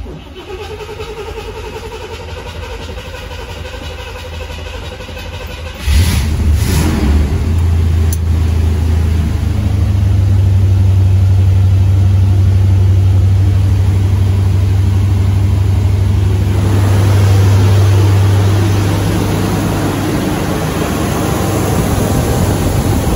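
A 1976 Corvette's 350 small-block V8, cold, is cranked by the starter for about six seconds, then catches and runs on its freshly rebuilt Quadrajet carburetor. It runs louder and faster for several seconds, then settles a little lower.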